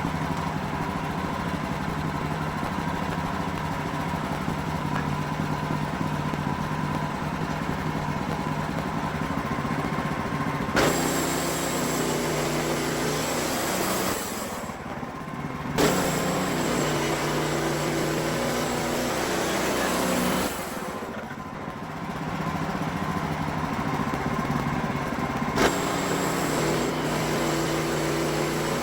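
Wood-Mizer LX55 sawmill's engine running steadily as the band saw head works through a pine log. The sound eases off briefly twice, and a few sharp knocks stand out.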